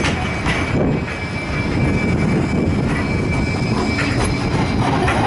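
Blackpool's Bombardier Flexity 2 articulated tram running along street track: a steady rumble with a thin, steady high whine above it.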